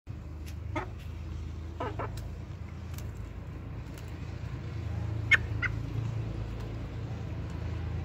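Young Indian Parrot Beak chickens giving five short calls: one about a second in, two close together near two seconds, and two more past five seconds, over a steady low hum.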